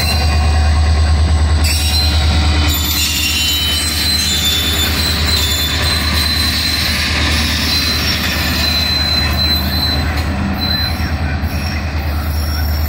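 CSX diesel locomotives passing at close range, a deep steady drone with thin high steel wheel squeals coming and going over it, mostly in the middle.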